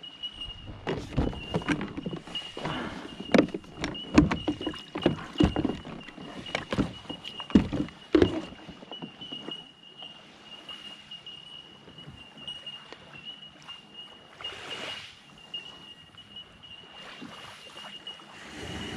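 Irregular knocks, clunks and water sloshing from a Hobie Outback kayak and its gear as it is brought in to the beach. These sounds are busy for the first eight seconds or so, then thin out to scattered light taps. A steady high-pitched tone runs underneath.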